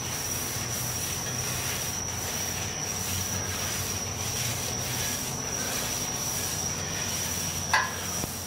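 Paper towel held in tongs wiping oil across a flat-top steel griddle, a soft rubbing over a steady hiss with a thin high whine.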